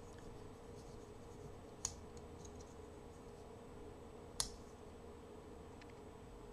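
Small three-blade pocket knife handled, its blades clicking as they are snapped open and shut: two sharp clicks about two and a half seconds apart, with faint small ticks between.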